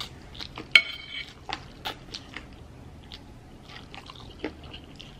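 A person eating noodles close to the microphone: wet chewing and mouth smacks with many small clicks. About a second in there is one louder, sharp sound with a brief ring.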